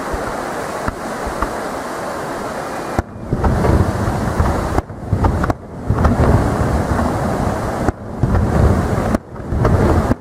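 Aerial firework shells bursting: after a few seconds of steady background noise, a run of loud, deep booms and rumbling begins about three seconds in and goes on to the end, several blasts in quick succession with brief dips in level between them.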